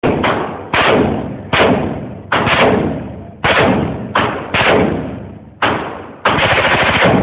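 AR-15 rifle fired with a bump stock in short rapid bursts and single shots, roughly one burst a second, ending in a longer rapid string near the end. Each burst rings out in a long echoing decay.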